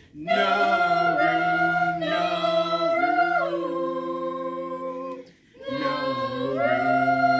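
Small choir singing a cappella, holding long sustained chords with no clear words: one chord whose notes shift about three seconds in, a brief breath gap about five seconds in, then a new chord held to the end.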